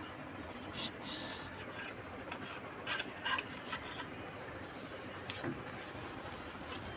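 Faint rustling and rubbing with a few light clicks and knocks, loudest as two quick clicks about three seconds in: handling noise as someone settles at a set-out meal.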